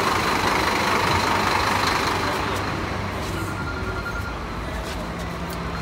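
Volvo bus running at a bus stand: a steady rushing engine and air noise by the open door, turning quieter and steadier about three seconds in, with a low steady hum inside the bus.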